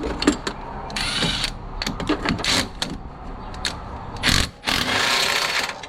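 Hand-tool work on an engine being torn down: repeated sharp metal clicks and clinks, with several short rattling, scraping stretches, the longest about a second long near the end.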